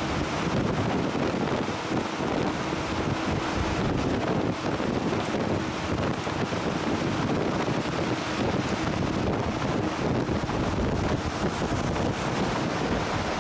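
Steady rumble of a de-icing agent spreader truck driving on a wet road, engine and tyre noise with a faint steady hum, mixed with wind noise on the microphone.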